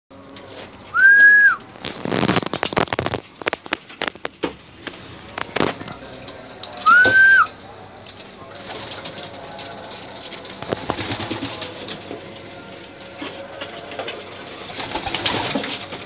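Pigeons flapping their wings and scuffling in several bursts, with faint high chirps. Two loud short squeals, each rising then falling in pitch, stand out about six seconds apart.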